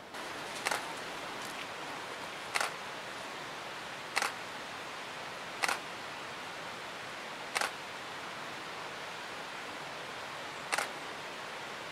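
Stills-camera shutter clicking six times at uneven intervals of one to three seconds, each a short sharp click, over a steady background hiss.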